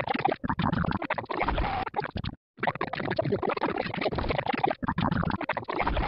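Heavily distorted, scrambled audio with a scratchy, chopped texture and only fragments of a voice in it, the sound track mangled along with the effects. It cuts out completely for a moment about two and a half seconds in.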